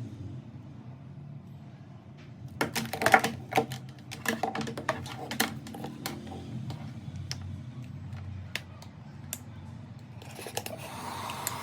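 Irregular sharp clicks and knocks of a hair dryer and its packaging being handled during unboxing, over a low steady hum.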